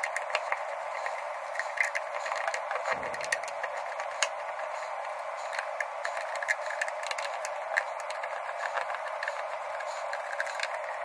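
Scattered sharp clicks and taps of a small screwdriver and the plastic cyclone housing of a Dyson V6 cordless vacuum being handled and worked on, over a steady background hiss.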